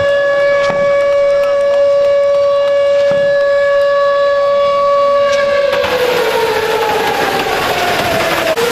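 A long horn or siren blast held on one steady pitch. About six seconds in, a loud rushing noise joins it and the tone slides down in pitch.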